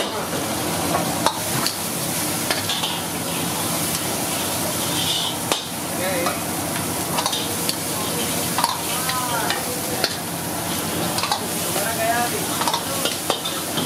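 Food frying in a pan with a steady sizzle while a metal utensil stirs it, with frequent sharp clinks against the pan.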